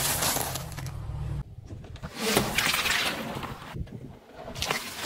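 A car tyre rolling over and crushing small objects in a string of quick clips: cracking and crunching, with abrupt cuts between them.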